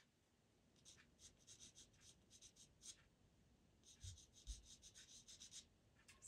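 Pastel pencil scratching across Pastelmat paper in quick, short strokes, faint, in two runs with a pause about three seconds in. A single sharp tap at the very start.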